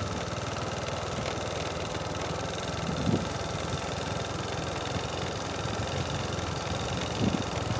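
A small engine running steadily at low revs, a low pulsing hum, with two short louder noises about three seconds in and near the end.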